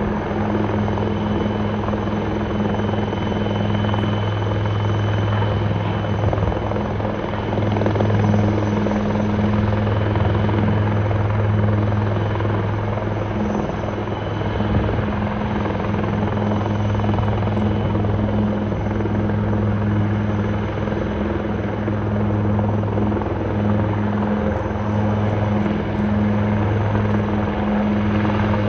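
Military helicopter's rotors and turbine engines running as it hovers low and settles onto a helipad: a loud, steady drone with a constant low hum throughout.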